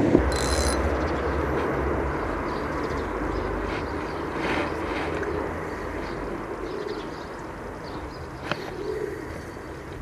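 Steady outdoor background noise with a low rumble, and a brief high chirp about half a second in.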